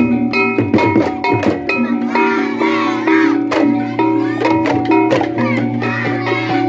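Balinese tektekan ensemble playing: fast interlocking clacks of struck bamboo over held, ringing metal tones of gamelan percussion. The sound cuts off abruptly at the very end.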